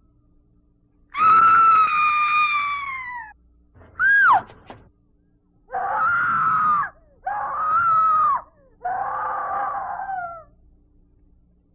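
A series of high-pitched screams from a haunted-house sound-effects record. One long scream about a second in is followed by a short shriek that drops sharply in pitch, then three shorter cries of about a second each. A faint steady hum runs underneath.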